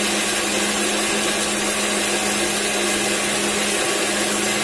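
Electric mixer grinder running steadily at full speed, its small stainless steel jar grinding ginger, garlic, onion and whole spices into a wet masala paste, with a constant motor hum under the grinding noise.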